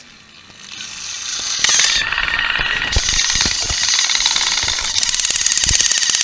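A small battery-powered toy train motor running with a steady, rattling buzz that builds up about a second in, with a few knocks of plastic toy engines.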